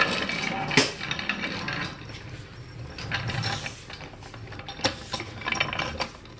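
Aluminium floor jack being rolled across a concrete floor into position, its wheels and handle rattling and clanking, with a sharp clack about a second in and a few more clicks near the end.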